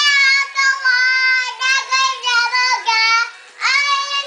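A young girl singing a children's worship song unaccompanied in a high, clear voice, in short sung syllables with a brief breath a little after three seconds in.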